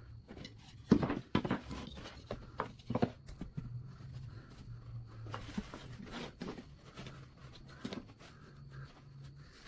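Pine boards being handled on a workbench: picked up, set down and slid together, giving irregular wooden knocks and clatters, the loudest about a second in.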